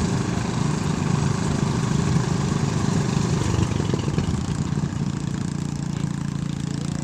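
Engine-driven rice threshing machine running steadily, a constant mechanical drone with a busy rattle over it; it turns a little quieter about five seconds in.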